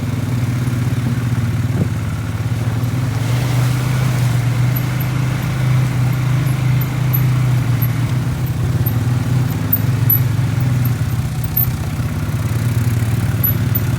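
Vehicle engine running steadily at an even speed, a low hum with no revving.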